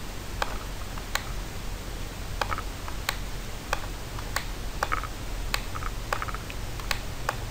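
Irregular sharp clicks, about one or two a second, of a stylus tapping and moving on a pen tablet while writing, over a steady low hum.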